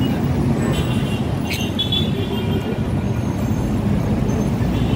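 Steady low rumbling background noise with no clear pitch, and a brief faint click about a second and a half in.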